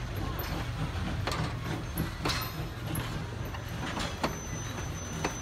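Passenger railroad coaches rolling past on jointed track: a steady low rumble of wheels on rail, broken by irregular sharp clacks as the wheels cross rail joints. A faint thin high tone joins a little past three seconds in.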